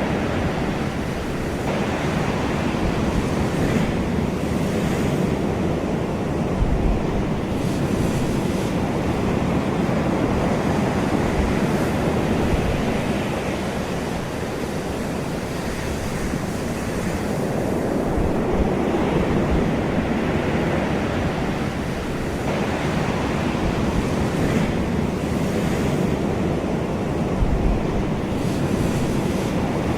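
Ocean waves washing onto a shore, a continuous surf with slow swells and the hiss of breaking water every few seconds, with some low wind rumble on the microphone.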